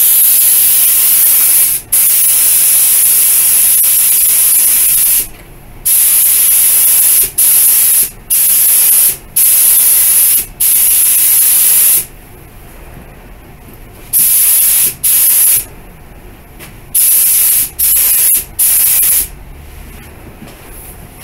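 Compressed-air paint spray gun spraying clear coat onto a car bumper, triggered in passes. It gives a loud hiss that runs about five seconds, then comes in shorter bursts of about a second each, with a pause of about two seconds midway.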